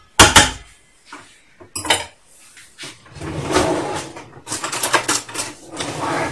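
A utensil knocks sharply once against a stainless-steel mixing bowl, then scrapes and clinks around inside it through thick cake batter, with a quick run of light clinks a little before the end.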